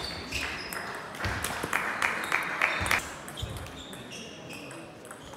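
Table tennis rally: the plastic ball clicking off bats and table in quick succession, ending about three seconds in, then only scattered clicks in the hall.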